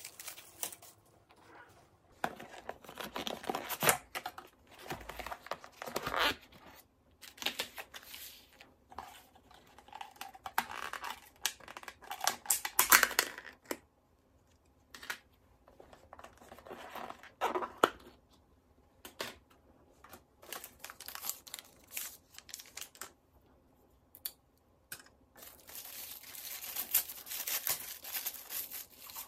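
Plastic food packaging being unpacked by hand: plastic wrap and film crinkling and tearing, and clear plastic lids being pulled off containers, in irregular bursts with brief pauses.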